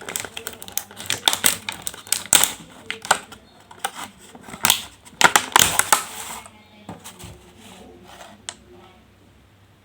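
Close-up crinkling and clicking of food and its plastic packaging being handled, dense for about six seconds, then thinning to a few scattered clicks.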